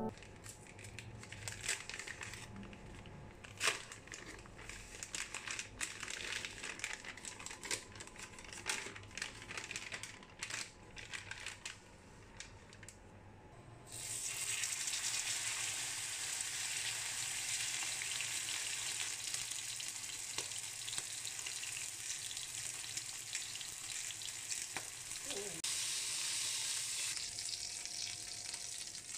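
Small scattered clicks and handling noises, then about halfway through a raw steak laid into a hot pan starts sizzling suddenly and loudly, a steady dense hiss that runs on until shortly before the end.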